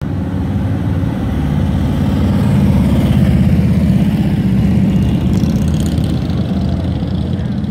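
Loud, steady, low engine rumble with a fast flutter, swelling slightly midway, from the vehicles of an approaching motorcade.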